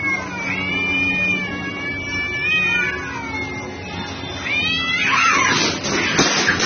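Two cats caterwauling at each other in a standoff, long drawn-out yowls that waver up and down in pitch. About five seconds in they break into a fight: a burst of screeching and scuffling with sharp clatters on the corrugated metal roof.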